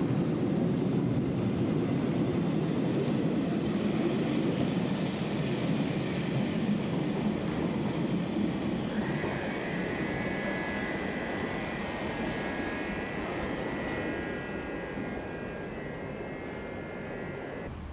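Metre-gauge train running along the platform: a steady rumble of wheels on rail that slowly fades, joined about halfway by a squeal of several high, steady tones from the wheels.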